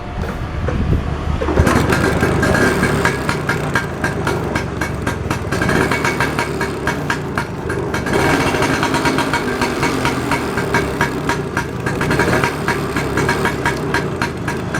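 Vespa scooter's two-stroke single-cylinder engine starting up and running steadily, with the sound building over the first second and a half. It is being run to test the headlight and horn after their broken wires were rejoined.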